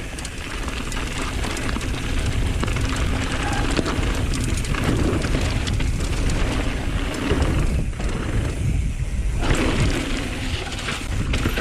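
Wind buffeting the microphone and mountain bike tyres rattling over dirt at speed, a steady loud rumble with scattered crackles as the bike runs in toward a big drop.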